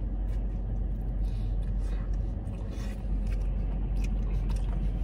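Steady low rumble inside a car's cabin, with faint chewing noises over it.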